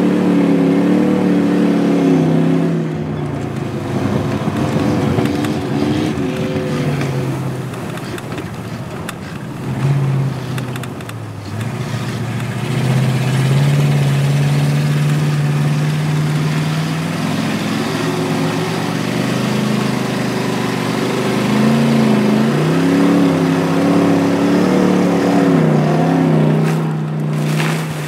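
Race car engine heard from inside the cabin while ice racing, revving up and easing off several times as its pitch rises and falls, with a steadier stretch in the middle. The sound drops off shortly before the end.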